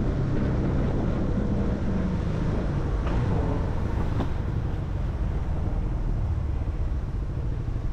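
Small motorcycle running steadily under way, its engine hum mixed with heavy wind and road rumble on the microphone.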